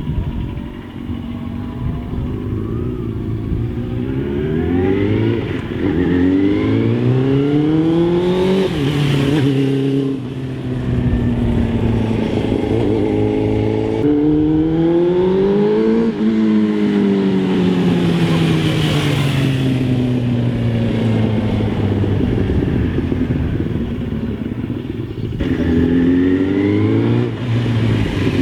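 Suzuki GSX-R750 SRAD inline-four sport bike accelerating on the road. The engine pitch climbs and drops back with each gear change in the first several seconds, then falls away steadily as the bike slows, and rises again near the end, with wind rush on the microphone at speed.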